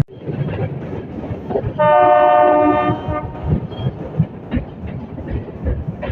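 Metre gauge train's locomotive horn giving one steady blast of about a second and a half, over the clatter of the carriages running on the track.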